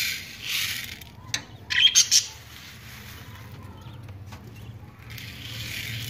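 Birdseed poured from a hand into a glass dish, a rattling hiss of falling seed at the start and again near the end. A quick cluster of three sharp, loud sounds about two seconds in.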